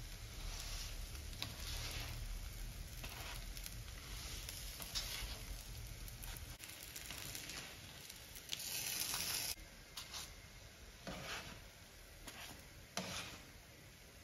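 Corn-husk-wrapped gorditas sizzling faintly on a hot comal, with a spatula scraping the griddle and the dry husks rustling as they are lifted onto a plate; a louder stretch of hiss comes about nine seconds in.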